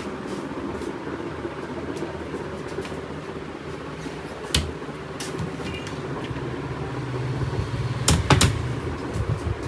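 Small wooden cabinet doors under a counter being pulled open and shut, with a sharp click about halfway through and a louder pair of knocks near the end, over a steady background hum.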